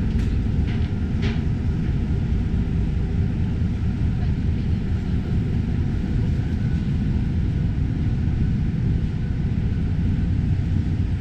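Steady low rumble of the JR Miyajima Ferry's engines, even and unchanging, with a few short faint higher sounds in the first second and a half.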